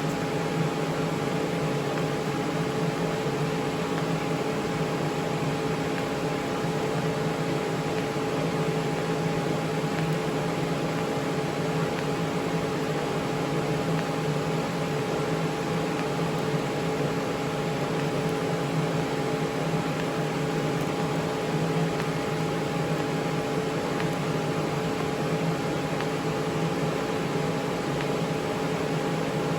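TIG welding machine running: a steady hum with several fixed tones over an even hiss, with no change throughout.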